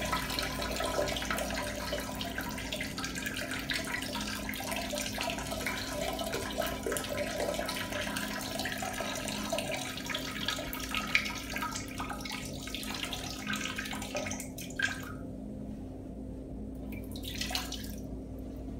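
A person urinating: a steady stream of liquid splashing, which stops about three-quarters of the way through, followed by one brief last spurt near the end.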